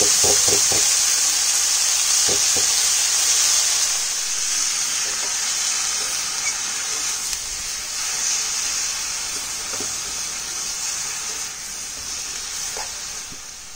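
Tender sachi shak greens sizzling in hot oil in a kadai, with fried garlic and green chillies, just after they go in; the sizzle fades steadily as the wet leaves wilt. A few light knocks of stirring in the first seconds.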